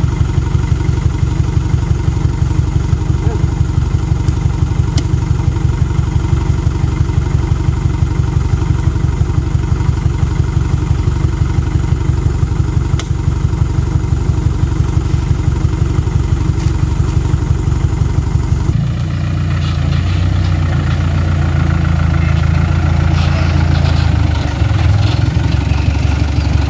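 A light truck's diesel engine idling with an even low throb. About two-thirds of the way through, the sound turns to a smoother, steadier hum.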